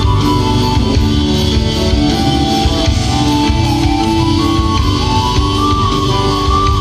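Live rock band playing an instrumental passage: drum kit, bass, electric guitar and keyboards, with a lead line of held notes that climbs in steps near the end.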